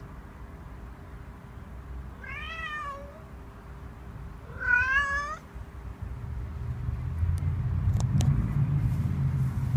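Tomcat meowing twice, each call rising then falling in pitch and lasting under a second, the second one louder: a longing courting meow aimed at a female cat. In the last few seconds a low rumble builds, with a few sharp clicks.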